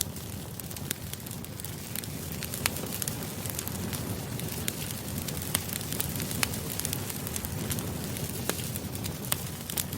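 Campfire burning: a steady low rumble of flames with frequent sharp, irregular crackles and pops of burning wood.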